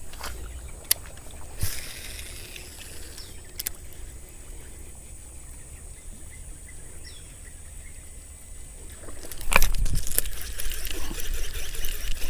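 A quiet stretch with a few faint clicks, then about nine seconds in loud splashing and thrashing at the water's surface: a large snakehead striking and fighting on a topwater frog lure.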